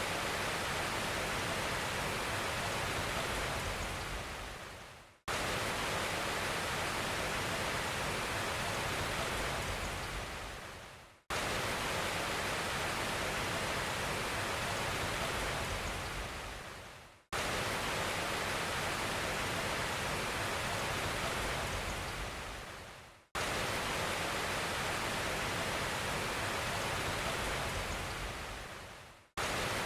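Steady, even rushing noise like rain or running water, repeating in identical loops about six seconds long. Each loop starts abruptly and fades out into a brief silence before the next.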